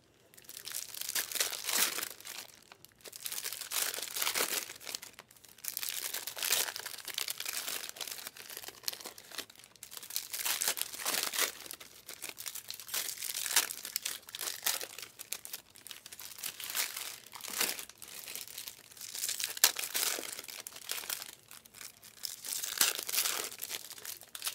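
Sealed Panini Optic trading-card packs crinkling as they are handled and shuffled, in repeated rustling bursts about every second or two.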